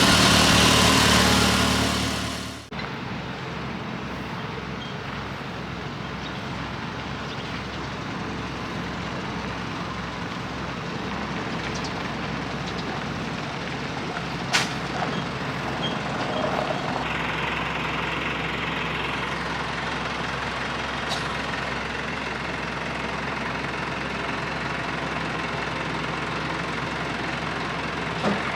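A motor vehicle's engine running: loud for the first two to three seconds, then dropping abruptly to a quieter steady running sound, with a few sharp clicks.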